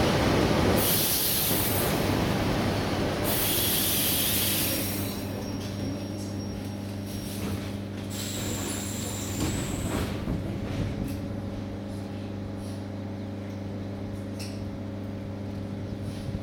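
ER9T electric train braking to a stop: the rolling noise fades over the first few seconds, broken by two hisses of air from the brakes. The train then stands with a steady low electrical hum, with a few faint clicks.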